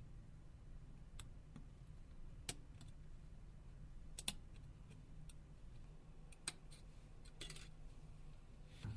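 A few faint, sharp clicks at irregular intervals as a dental tool pries a thin metal shielding lid off a phone's circuit board, over a low steady hum.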